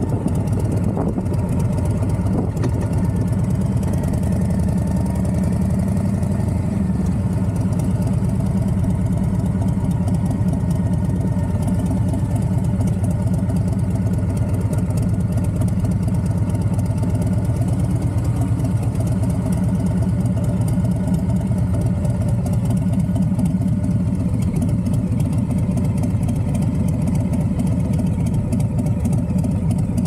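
Harley-Davidson FXDR 114's Milwaukee-Eight 114 V-twin running steadily at low speed, heard close up from a camera mounted on the bike.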